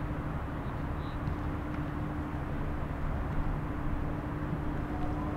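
Steady outdoor background rumble with a constant low hum, likely from machinery, traffic or aircraft.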